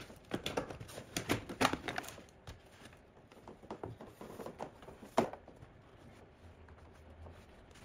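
Rustling and clicking of a power wire and interior trim being handled by hand in a car's footwell: busy over the first two seconds, then sparser, with one sharp click about five seconds in.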